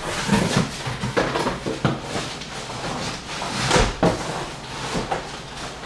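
Cardboard boxes being wrestled and set down: scraping and rustling with several dull knocks and thuds.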